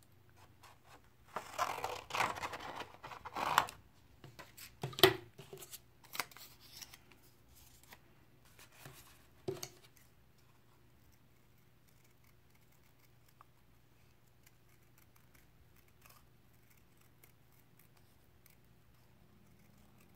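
Scissors cutting black paper: rustling and snipping over the first few seconds, the loudest snip about five seconds in, then only faint scattered snips as the small pupil shapes are trimmed.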